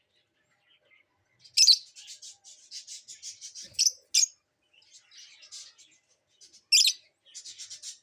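Lovebirds chirping and chattering in rapid trains of high chirps, with sharp louder calls about one and a half, four and seven seconds in.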